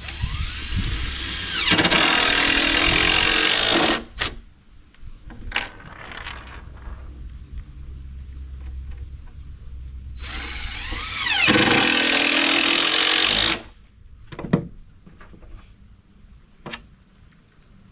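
Cordless drill driving 3-inch deck screws through plywood into a 4x4, twice: each time the motor whines up in pitch, runs hard for a couple of seconds under load, then stops suddenly. A few sharp clicks follow each run.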